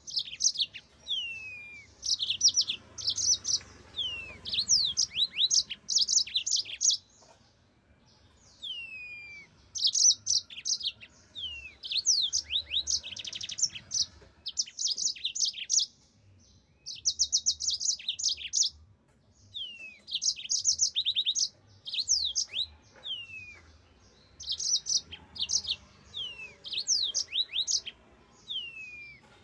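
Yellow-fronted canary (Mozambique canary) singing: phrases of rapid, high trills and quick falling whistles, in bouts of a second or two separated by short pauses.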